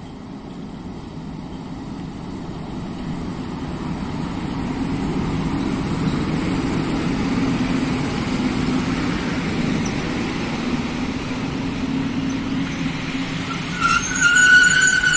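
PKP Cargo train led by ET22 electric locomotives approaching and passing, a low rumble that grows steadily louder. Near the end a high-pitched wheel squeal sets in as the wheels grind through the track.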